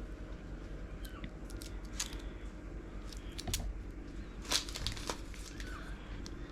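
Small plastic packaging of a miniature resin kit being handled and opened: light crinkling with scattered sharp clicks and taps, the loudest clicks about three and a half and four and a half seconds in.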